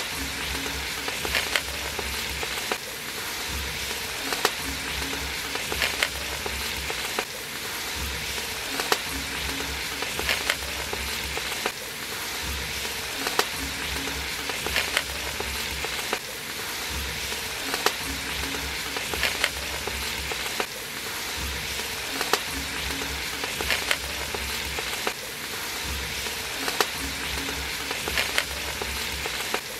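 Prawn masala sizzling as it fries in an aluminium pot, with a ladle stirring and scraping through it. A soft rhythmic beat repeats underneath, about every second and a half.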